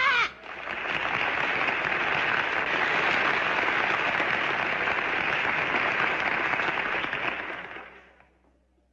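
A crowd applauding, the clapping swelling in quickly, holding steady for about seven seconds and fading away near the end. It opens on the tail of a man's loud whooping shout.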